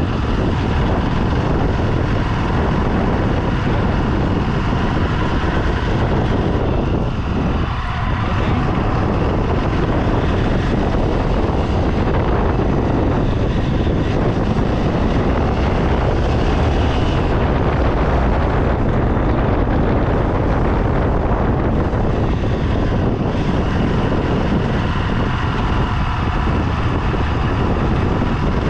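A moving vehicle running steadily, with a constant engine note and rushing noise.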